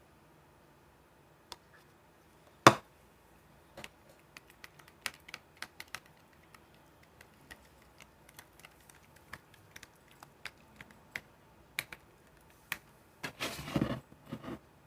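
Sticky, barely activated slime being worked by hand, giving irregular small clicks and pops, with one sharper click about three seconds in and a short louder squish near the end.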